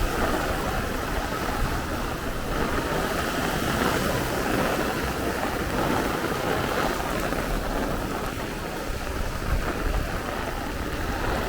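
Heavy downpour in strong gusty wind: a steady dense hiss of rain with low, uneven rumbling from the gusts.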